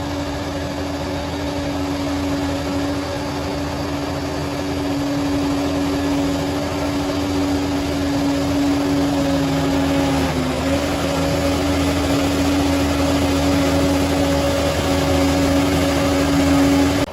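Bulldozer's diesel engine running steadily with a constant whine over it; the whine dips briefly in pitch about ten seconds in, and the sound cuts off suddenly at the end.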